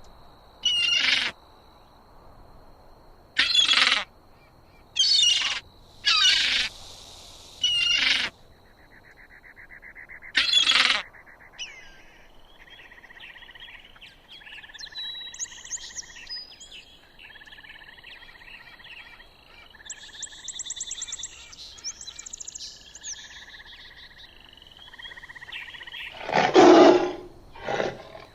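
Birds calling: first a series of loud, harsh single calls about every one to two seconds, then a quieter mix of chirps and trills from several birds. Near the end a louder, deeper animal call begins.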